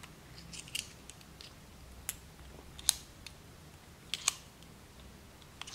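Metal shell cartridges clicking as they are pushed one by one into the cylinder of an airsoft gas revolver: a handful of sharp, separate clicks about a second apart.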